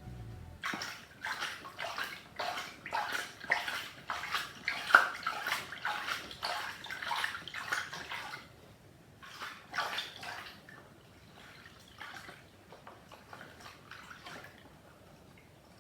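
Water sloshing and splashing as a stuffed plush toy is hand-washed in a tub of soapy water. The splashing is busy for about eight seconds, then turns sparser and fainter.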